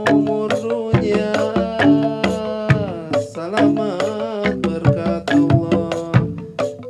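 Traditional Sundanese ensemble music: drums struck in a quick, busy rhythm under a held melody line that slides in pitch.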